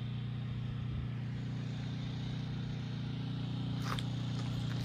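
Steady low hum of an engine running at an even idle, with a brief scrape or rustle about four seconds in.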